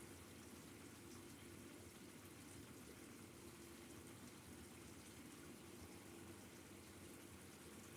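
Near silence: steady room tone, a faint even hiss with a low steady hum.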